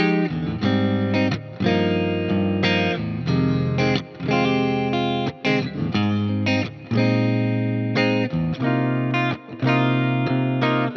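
Fender Player Telecaster electric guitar playing chords and single notes over a backing track. The phrases are re-struck every half second or so, with brief gaps between them.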